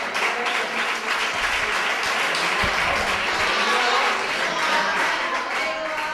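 Audience applauding steadily, with a few voices among the clapping.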